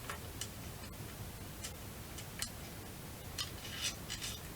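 Faint, scattered light clicks and ticks of small rifle parts and a screw being handled while the .22 rifle is taken apart, about eight over a few seconds.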